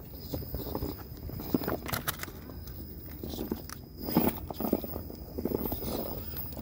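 RC rock crawler's tyres crunching and scraping over gritty granite as it climbs, with irregular sharp clicks and knocks of wheels and chassis against the rock. A faint steady high whine from its brushless electric motor runs underneath.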